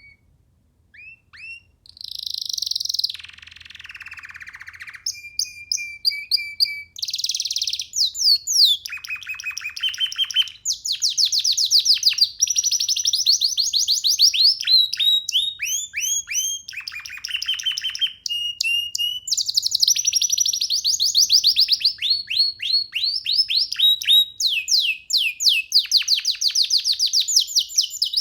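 Young domestic canary singing: a few short notes, then from about two seconds in a long, nearly continuous song of rapid repeated trills and falling glides.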